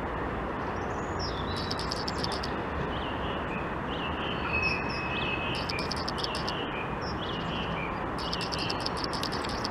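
Small birds chirping and twittering in short high bursts over a steady, even background rumble.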